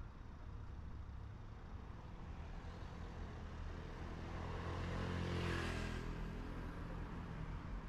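Road traffic passing close: a van's engine and tyres swell to a peak about five and a half seconds in and fade away, over a steady low rumble of traffic.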